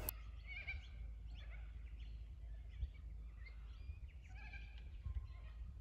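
Faint birdsong: many short chirps and warbling whistles from several birds, over a low, steady rumble.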